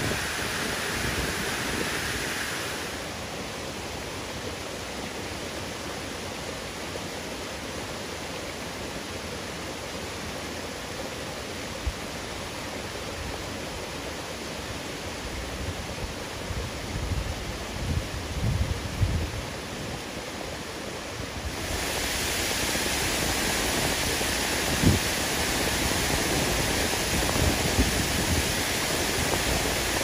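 Steady rushing of a mountain waterfall, with low wind rumbles on the microphone in the middle. About 22 seconds in, the rush gets louder and brighter.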